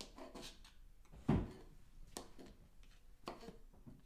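Kitchen knife chopping portobello mushroom stems on a cutting board: a run of irregular knife taps, with one louder, heavier knock about a second and a half in.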